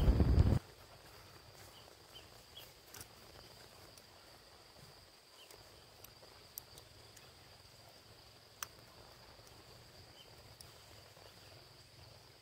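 Faint, steady high-pitched insect trilling, like crickets, with a few light clicks over it. A brief loud noise opens the sound and cuts off after about half a second.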